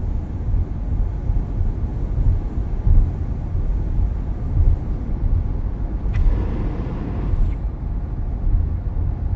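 Wind noise and road rumble inside a Tesla's cabin at highway speed, a steady low rush, with a brief louder rush about six seconds in. The owner suspects the wind noise on this side comes from a badly assembled part, like the mirror that caused an earlier whistle, or a gasket issue.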